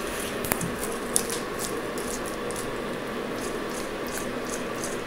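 Black roughneck monitor eating a whole mouse: irregular short, wet clicks and crunches from its jaws, several a second, over a steady background hiss.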